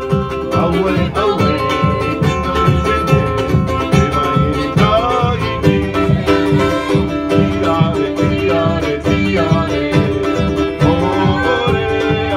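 Live band music for a dance: plucked guitars over a steady beat, with a voice singing a gliding melody.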